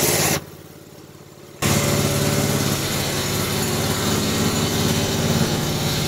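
Small engine of a DACK SMP 13/85 portable band sawmill running steadily at low throttle, its drive belt slackened so the blade is slowing down. About half a second in, the sound drops away sharply for a little over a second, then the engine is heard again.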